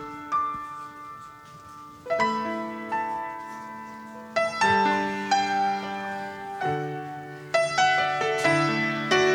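Piano playing a slow instrumental introduction: chords struck every second or two and left to ring and fade.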